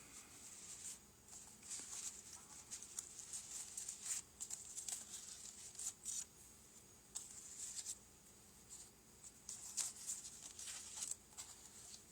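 Faint, irregular rustling and scratching as the parts and packaging of a model kit are handled, in short scrapes spread throughout.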